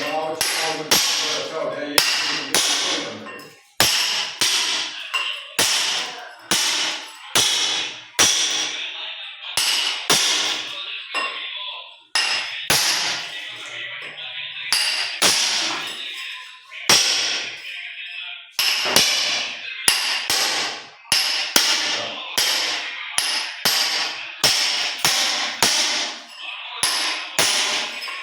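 Hammer blows, about one a second and somewhat irregular, each with a ringing metallic edge: hand chipping to cut out an old floor drain from the washroom floor.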